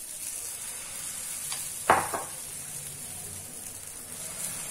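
Oats cheela batter sizzling on a greased tawa, a steady hiss. A sharp knock about two seconds in, with a lighter one just after.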